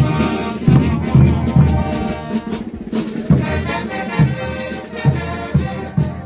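Bolivian brass band playing carnival dance music: brass instruments carrying the tune over a steady bass drum beat.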